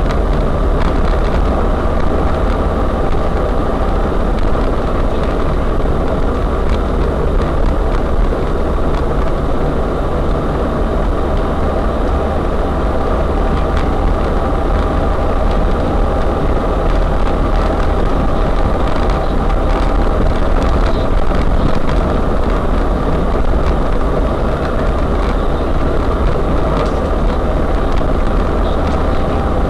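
UAZ-3909 'Bukhanka' 4x4 van driving off-road, its engine and drivetrain making a steady low drone with scattered light knocks and rattles.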